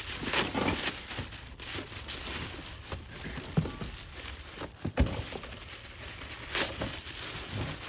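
Rustling and crinkling of paper and packing as someone rummages through a cardboard storage box, with irregular clicks and a few louder knocks of objects being moved, the loudest about five seconds in.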